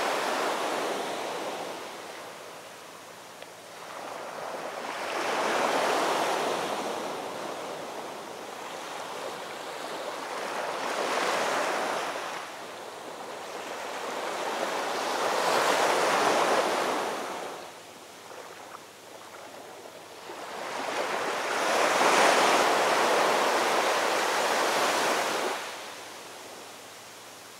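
Rushing noise, like surf or wind, that fades at the start and then swells and ebbs four more times, each swell lasting a few seconds.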